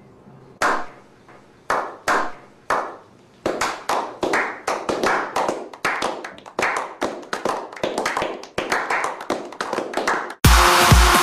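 Slow clap by a small group: a few single hand claps spaced about half a second to a second apart, then from about three seconds in several people clapping faster and overlapping, building into applause. It cuts off abruptly near the end as loud dance music with a steady beat comes in.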